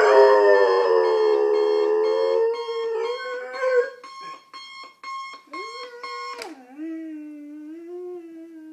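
A German shorthaired pointer howling along to a beeping alarm clock: first one long loud howl, then a shorter one. The beeping stops about six and a half seconds in, and the dog carries on with a lower, softer howl.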